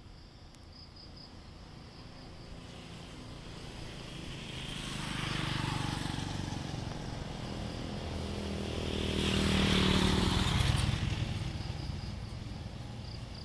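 Two road vehicles driving past one after the other, each engine and tyre sound building up and fading away, the second louder. Insects chirp faintly behind them.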